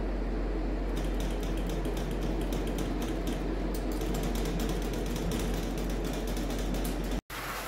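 Pet drying cabinet's blower running steadily with a low hum. From about a second in, rapid irregular clicking and rattling comes from inside the cabinet as the dog moves about on its plastic grid floor.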